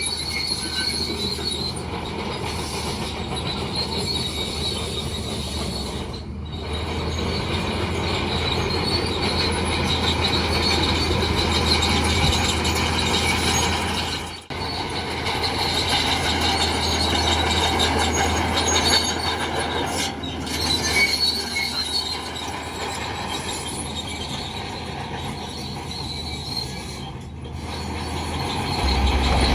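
Heavy earthmoving machinery working: a diesel engine runs steadily under high-pitched metallic squealing, typical of a bulldozer's crawler tracks.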